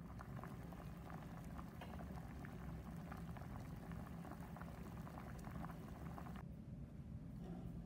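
Water at a rolling boil in a saucepan of peeled chestnuts, a dense crackle of small bubbles over a low hum. The bubbling breaks off suddenly about six and a half seconds in.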